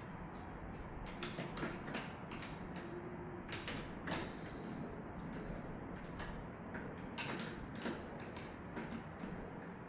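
Metal door-hardware parts clicking and scraping as a motorized latch-retraction kit is test-fitted into an exit device's push bar, with a short high squeak near the middle. The kit turns out not to fit on this side.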